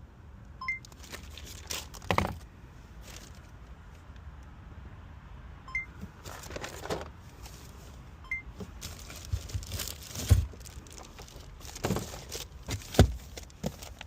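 Irregular rustling and crinkling of things being handled, with a few short high electronic beeps and a couple of dull knocks near the end.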